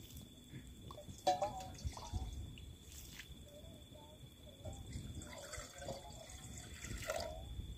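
Water splashing and dripping in a small pot as peas are rinsed, with a few light clicks.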